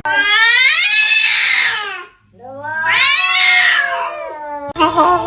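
Cat caterwauling: two long, drawn-out yowls, each rising then falling in pitch, with a short break between them. Near the end a different, steadier pitched cry cuts in abruptly.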